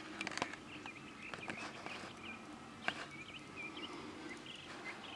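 Faint chirping of small birds: short, quick curved chirps, several in a row at times, with a few sharp clicks among them.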